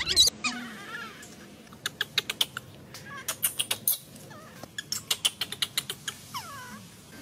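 Young macaque giving short high calls near the start and one falling call near the end, with quick, irregular clicks and taps in between.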